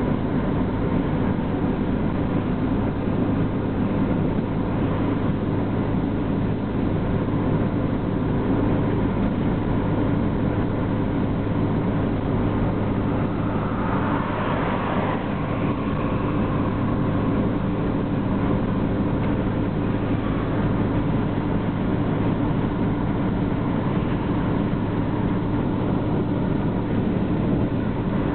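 Steady road and engine noise heard inside a car's cabin travelling at freeway speed, with a low hum and no change in level.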